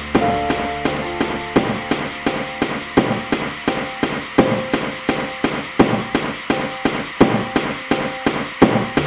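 Instrumental music with a steady knocking percussion beat, about three hits a second with a stronger accent every second and a half or so, over a held low bass note and sustained higher tones.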